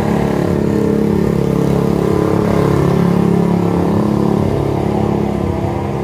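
A motor vehicle engine running steadily, holding a fairly even pitch and level throughout.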